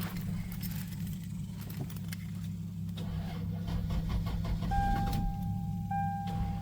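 A car engine running steadily with keys jangling, then from about five seconds in a car's warning chime sounding as a repeated steady beep with short gaps.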